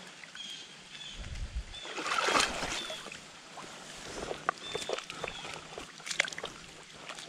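Shallow creek water splashing and sloshing as a hand reaches in to land a hooked brown trout, with a swell of sloshing about two seconds in and several short, sharp splashes later on.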